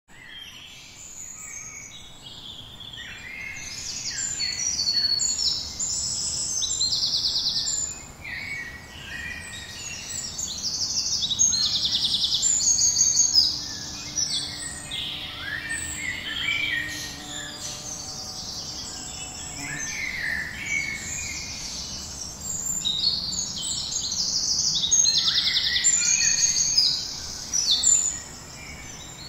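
Several songbirds singing at once: a dense chorus of quick, high chirps and trills that swells and fades in loudness.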